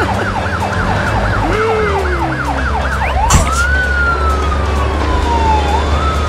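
Cartoon siren sound effect: a fast up-and-down yelp, about three cycles a second, for the first two seconds, then long slow wails that rise and fall. Underneath is a steady low vehicle-engine rumble, with one sharp hit about three seconds in.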